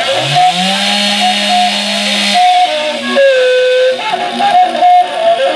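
Two-stroke Stihl chainsaw revving up to full throttle near the start and holding there for about two seconds, then its pitch dropping away as it cuts into a log, with wavering whistling tones over it.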